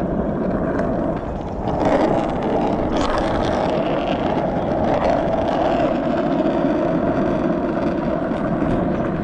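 Skateboard wheels rolling fast over asphalt, a steady gritty rumble with wind buffeting the microphone, and a couple of knocks from the board about two and three seconds in.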